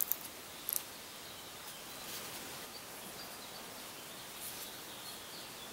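Quiet background hiss of room noise, with two short sharp clicks within the first second.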